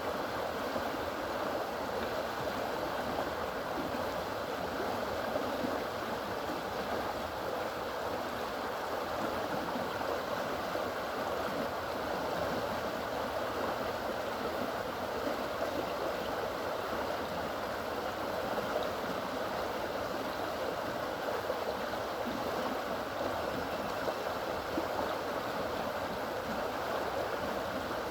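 Fast-moving floodwater rushing along an overflowing canal after heavy rain: a steady rush of water.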